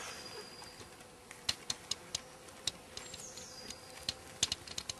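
Scattered sharp clicks and ticks at irregular intervals, a few in quick pairs. Twice a faint high whistled note drops in pitch and then holds.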